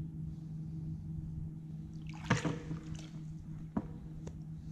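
Light splashes and water sloshing in the shallows as a catfish is held at the water's edge for release, a few short splashes about two seconds in and near the end, over a steady low hum.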